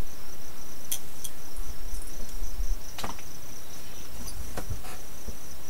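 Insects chirping in a steady, high-pitched, pulsing trill, with a few soft clicks and a low rumble from the microphone being handled.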